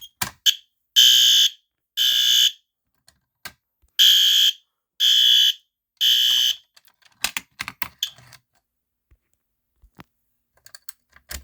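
System Sensor fire alarm horn sounding in loud half-second blasts in the temporal-three pattern: two blasts, a pause of about a second and a half, then three blasts a second apart. A few sharp clicks come just before the horn starts and again after it stops.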